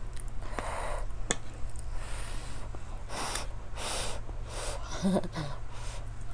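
Close-miked eating sounds: a fork or spoon clinks on a plate about a second in, then a run of loud breaths through the nose and mouth while chewing a spoonful of fish and rice, with a short hum just before the end.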